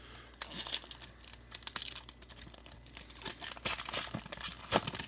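Wrapper of a Topps Gypsy Queen baseball card pack being torn open and crinkled in the hands: a dense run of sharp crackles, with a louder crack near the end.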